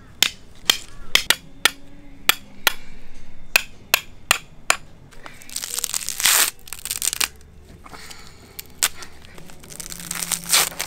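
Sharp, rapid knocks, about two or three a second, from tapping a hole through a coconut shell. They stop about five seconds in, and two stretches of rustling scrape follow.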